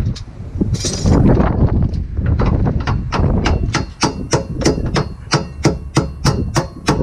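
Hammer blows on metal at the car's rear strut: a steady run of sharp, ringing strikes, about three a second, starting about three and a half seconds in, over wind noise on the microphone.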